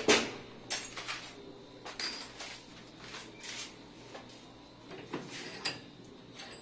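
Metal gun parts and hand tools handled at a workbench: a scatter of irregular clicks, taps and knocks as the rifle's magazine tube and tools meet each other and the bench, the loudest knock right at the start.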